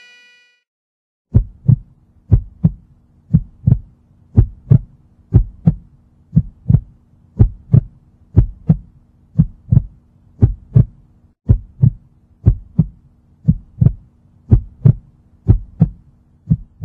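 Heartbeat sound effect: pairs of deep thumps, about one pair a second, over a faint steady hum, starting after an electronic beep tone cuts off at the very start.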